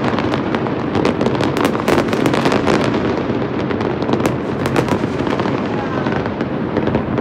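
Aerial fireworks going off over a city: rapid cracking and banging over a continuous rumble, the crackle thinning out over the last couple of seconds.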